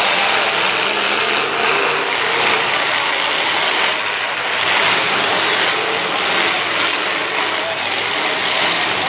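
Many demolition derby cars' engines running hard together as a loud, steady din, with wheels spinning in the dirt.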